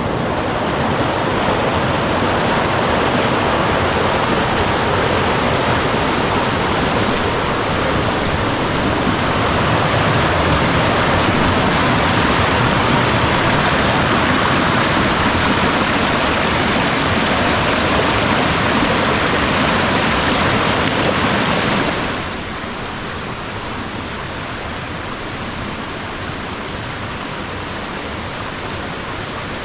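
Mountain stream rushing over rocks: a loud, steady wash of white water. About 22 seconds in it drops suddenly to a quieter, duller rush.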